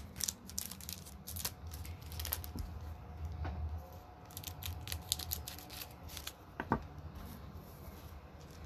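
Trading cards and foil pack wrappers being handled: scattered light clicks, scrapes and rustles as the cards are sorted, with a brief squeak about two-thirds of the way through.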